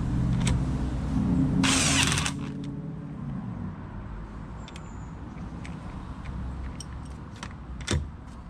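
An impact wrench fires in one short burst of about half a second, about two seconds in, driving home a wheel bolt, over a steady low rumble and a few light clicks.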